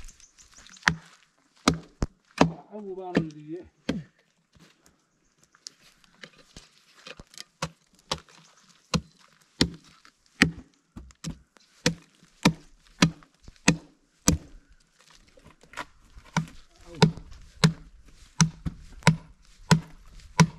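A heavy knife blade chopping into the wood of a tree trunk: a long run of sharp, separate chops about one to two a second, coming thicker in the second half, with wood chips knocked off.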